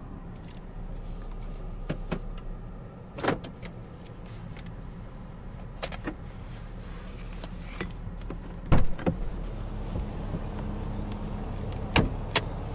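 Handling noises inside a parked 2020 Lexus ES 350 over a low steady hum: scattered clicks and knocks from the cabin controls and the driver's door. The loudest knock comes about nine seconds in, and a lever under the dash is pulled with two sharp clicks near the end.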